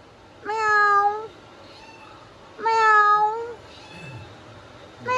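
A kitten meowing: two drawn-out meows about two seconds apart, each holding a steady pitch for nearly a second, and a third beginning right at the end.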